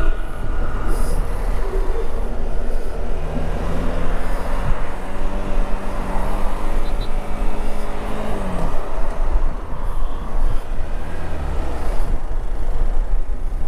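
Motorcycle on the move with heavy wind rumble on the microphone. An engine note holds steady for several seconds, then drops in pitch about eight seconds in.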